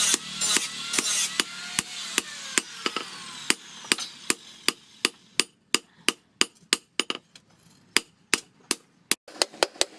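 Hand hammer striking the bearing steel on an anvil, a steady run of ringing metal blows at about three a second.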